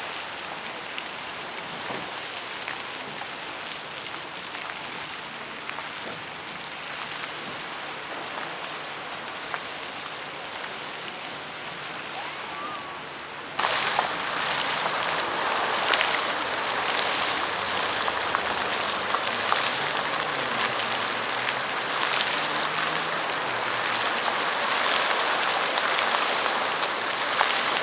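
Fountain water splashing in a steady rush of falling spray. About halfway through the sound switches abruptly to a louder, brighter splashing.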